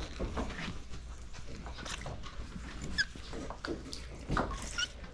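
Magnet-fishing rope being hand-hauled up out of the water over a wooden dock, with rustling, knocking and scraping, and a couple of short high squeaks about three seconds in and again near the end.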